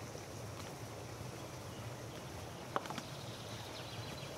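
Water running steadily along a stone channel, with birds chirping. About two-thirds of the way in comes one sharp metallic clink as a metal basin is set down on the concrete edge.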